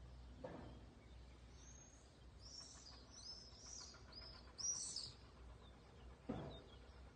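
A small bird chirping: a quick run of high, down-slurred notes in the middle, the loudest near the end of the run, over a faint low hum. Two brief soft thumps, one near the start and a louder one near the end.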